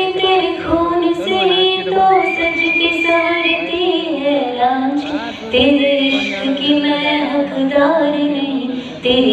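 A young woman singing solo into a handheld microphone, amplified through the hall's sound system. She holds long notes with sliding ornaments and takes a short breath near the end.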